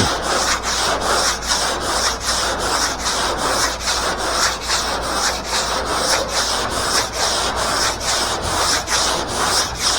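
Coarse sandpaper being rubbed by hand over the car's steel roof panel in quick, even back-and-forth strokes, about three to four a second, with a steady scratchy hiss.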